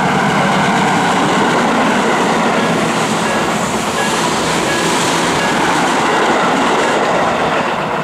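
Tobu 8000-series electric train passing close by at a level crossing, its wheels clattering over the rail joints with a loud rumble and hiss that peaks about halfway through. The crossing's electronic warning bell, an Odakyu-style tone, keeps ringing underneath, mostly drowned out by the train.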